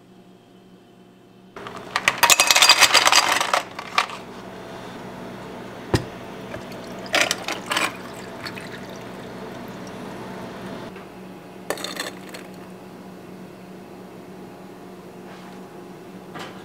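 Ice cubes clattering loudly into a glass, then water poured over the ice, with a few clinks of ice against the glass, while an iced americano is made. The pouring stops about eleven seconds in; a steady low hum runs underneath.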